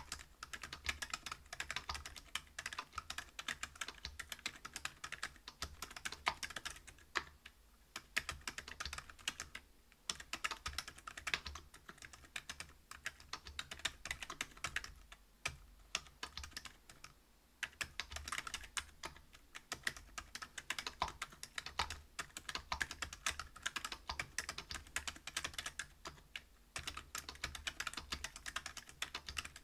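Continuous fast typing on a Whale 75 mechanical keyboard with stock Gazzew Bobagum silent linear switches (62 g), a brass plate and PBT keycaps: a dense run of soft keystrokes, broken by a few short pauses, the longest about two seconds past the middle.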